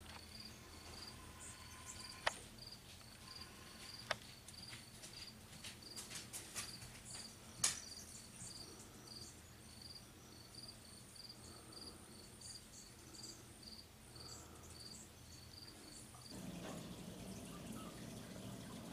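A cricket chirping steadily, about two chirps a second, with three sharp clicks in the first half, the loudest about eight seconds in. Near the end the chirping gives way to a low rush of trickling water.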